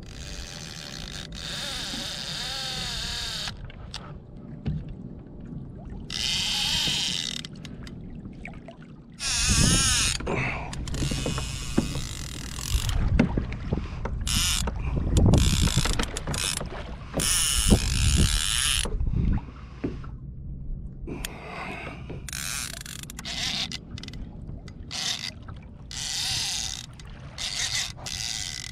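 Fishing reel ratcheting in repeated bursts of fast clicking, with loud low bumps and rumble in the middle.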